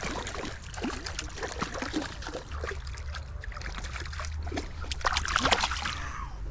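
Creek water trickling and splashing close by, with many small irregular splashes that are busiest about five seconds in, over a steady low rumble.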